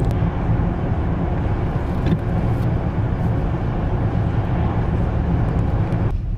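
Steady road and engine noise heard inside a moving car's cabin, a dense low rumble with tyre hiss above it; the higher hiss drops away abruptly near the end, leaving the low rumble.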